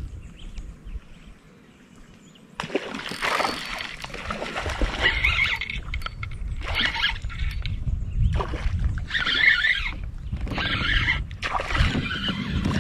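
Water splashing and knocking against a plastic fishing kayak in irregular bursts, starting about two and a half seconds in, as a small hooked fish is brought alongside.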